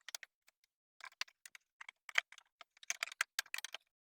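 Irregular run of small clicks and light knocks, uneven in spacing and bunched near the middle, from hardware and tools being handled while fitting an aftermarket exhaust can on a snowmobile.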